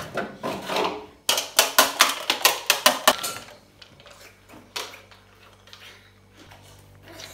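Ice cubes clattering against a metal plate: a quick run of sharp clicks lasting about two seconds, then a single click a little later.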